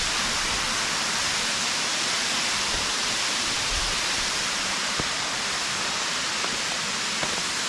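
Waterfall rushing in a steady, even roar of falling water, with a faint click about five seconds in.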